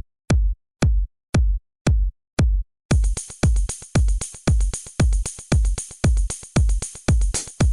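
Electronic background music: a kick drum alone on a steady beat of about two a second, then the full beat with higher percussion and synths comes in about three seconds in.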